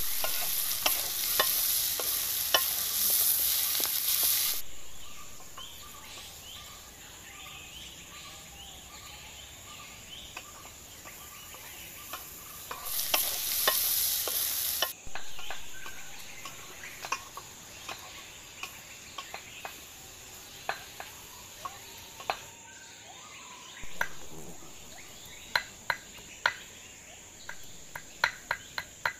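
Fish frying in hot oil in a wok: a loud sizzle for the first few seconds and again about 13 seconds in, dying back to a low crackle between. A spatula clicks and scrapes against the wok throughout, with sharper taps near the end.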